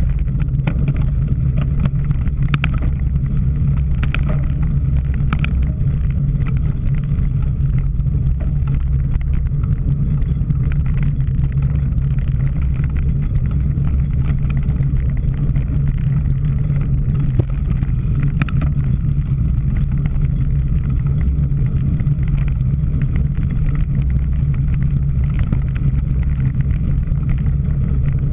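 Steady low rumble of wind buffeting and vibration on a camera riding on a cyclocross bike at race speed, with a few faint clicks and rattles scattered through it.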